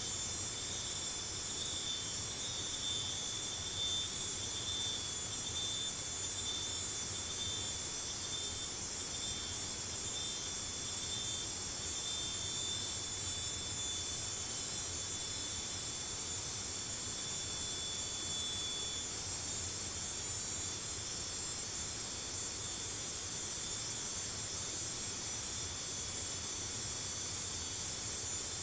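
Steady, high-pitched chorus of insects shrilling, with a thin steady tone from a single caller that stops about two thirds of the way through.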